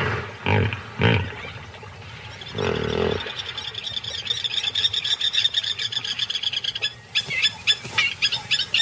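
Hippos grunting, with short squealing calls, in the first three seconds. Then a fast, high chirping trill runs on. From about seven seconds in, plovers give loud, sharp, rapidly repeated calls.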